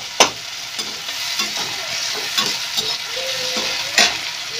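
Onions and chopped tomatoes sizzling in hot oil in a pan while being stirred, with scraping of the stirring utensil and two sharp clicks of it against the pan, one just after the start and one near the end. The tomatoes are cooking down in the fried onions.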